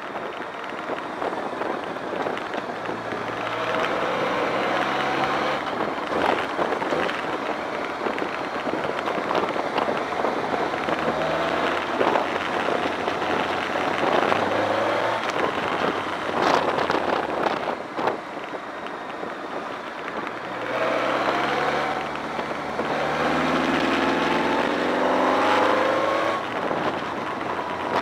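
BMW K1200R Sport's inline-four engine on the move, revving up and easing off several times, with a long rise in pitch in the last third. Underneath is a steady rush of wind and wet-road noise.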